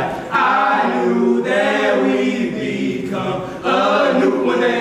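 Four young men singing together a cappella, unaccompanied, in held phrases with short breaks between them.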